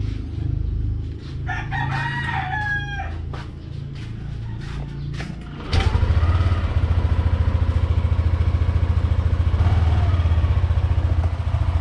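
A rooster crows about a second and a half in. A little before halfway, the Yamaha Aerox 155's single-cylinder engine starts with a sudden jump in loudness, then idles with an even, rapid pulse.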